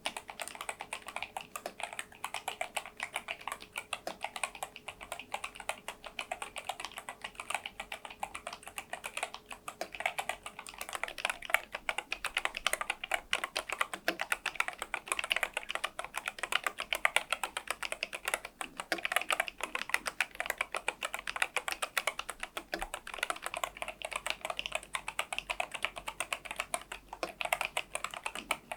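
Fast, continuous typing on a NuPhy Air96 low-profile keyboard with Gateron LP 2.0 red linear switches, fitted with taller Cherry-profile keycaps, which the uploader says give the board a hollow case resonance.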